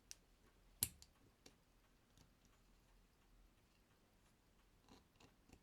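Near silence broken by a few sharp clicks of small metal tools on a Hamilton pocket watch movement as the cannon pinion is worked off, the loudest click a little under a second in.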